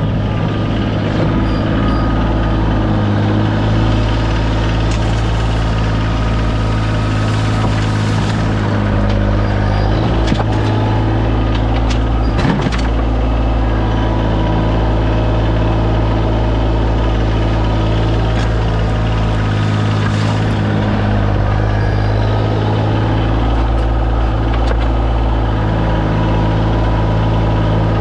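Kioti CX2510 sub-compact tractor's three-cylinder diesel engine running steadily, with a couple of brief knocks partway through.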